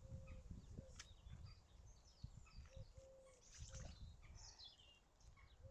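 Faint birdsong from several birds, many short high chirps and warbles, with a low cooing call that repeats about every three seconds.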